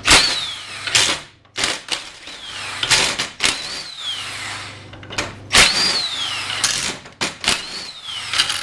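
Power driver backing out the 10 mm cover bolts of a snowmobile primary clutch in several short bursts, each followed by a falling whine as the tool spins down. The bolts hold the cover against heavy clutch-spring tension and are loosened a little at a time.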